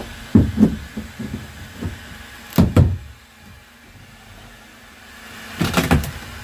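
Knocks and thuds of hands and tools working on the rotten wooden stringers in a fibreglass boat hull, loudest a little under three seconds in and in a quick cluster near the end, over a steady low hum.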